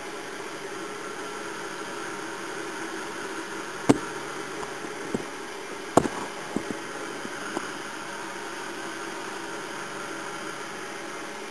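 Steady background hiss broken by a handful of sharp clicks and knocks from a handheld camera being handled and moved, the two loudest about four and six seconds in.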